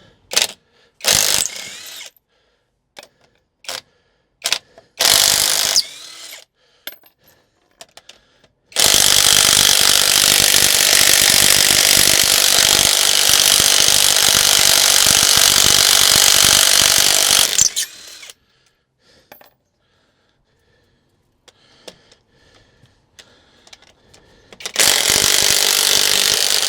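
Power impact wrench hammering at a stubborn wheel bolt: a few short bursts, then one long run of about nine seconds in the middle, and another burst near the end. The bolt is tight and slow to come loose.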